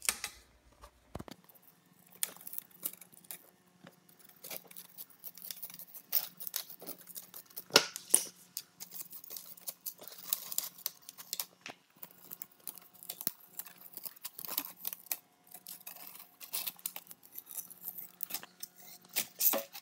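Old rubber spline being pulled out of a window screen frame's channel and the frayed old screen mesh torn away from the frame: a run of irregular scratchy rasps, crackles and clicks.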